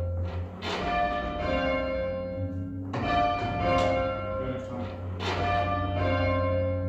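Two tower bells rung full-circle by hand, as in English change ringing, struck one after the other: three pairs of strokes, each note ringing on and overlapping the next.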